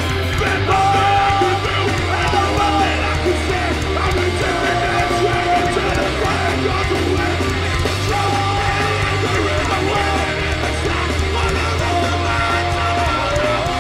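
Hardcore punk band playing live at full volume: distorted guitars, bass and drums, with a repeating held-note melody line and shouted vocals.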